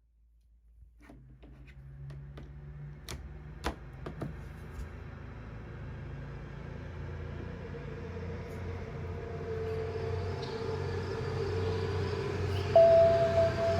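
A low rumbling noise that builds gradually out of silence, with three sharp clicks about three to four seconds in and a steady high tone joining near the end.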